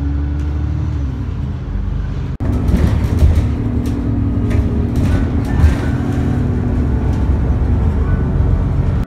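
Bus engine running and road rumble heard from inside the passenger cabin, a steady low drone. About two and a half seconds in it breaks off briefly and comes back a little louder, with scattered light knocks and rattles.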